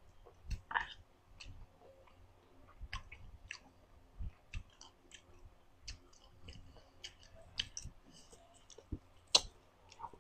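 Close-miked chewing of a sour Vietnamese lime: irregular wet mouth clicks and smacks, with one sharper click about nine seconds in.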